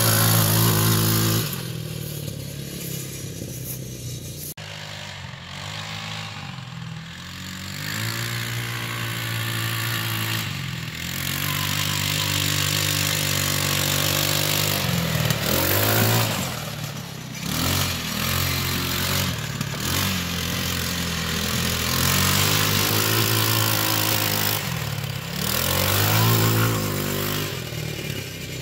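TaoTao 150cc four-stroke ATV engine running under a rider, revving up and easing off with the throttle. It is loudest at the start, drops back about a second and a half in, builds again, then gives several short rev blips in the second half.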